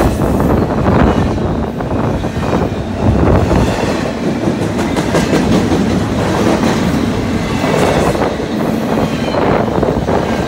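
Double-stack intermodal container train passing close by: the wheels of the well cars rumble steadily over the rails with scattered clicks, loud throughout.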